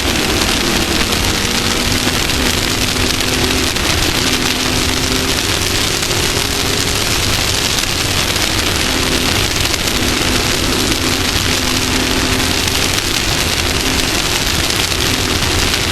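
Off-road race vehicle engine running hard, its pitch shifting up and down every few seconds with throttle, under a loud, steady rush of wind and rough-terrain noise.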